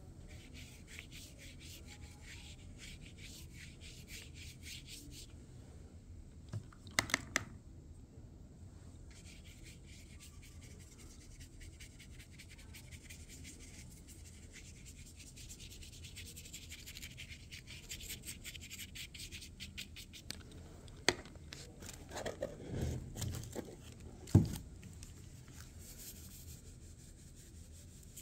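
Paintbrush rubbing wet watercolour across paper, a faint scratchy brushing made of fine ticks. A few louder knocks come about a quarter of the way in and again near the three-quarter mark.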